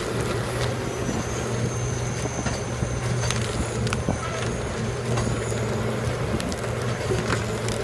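Heavy machinery engine running steadily with a constant low hum, broken by scattered sharp clicks and knocks.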